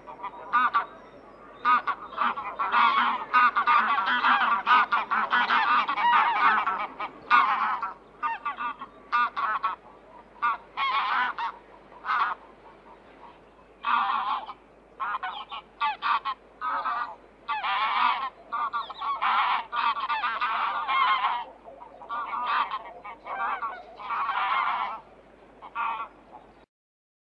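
Geese honking: many short, harsh calls in quick, irregular succession, often overlapping, which stop abruptly shortly before the end.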